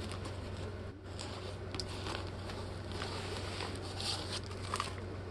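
Light rustling with a few soft ticks and taps from handling a large diamond painting canvas, over a steady low hum.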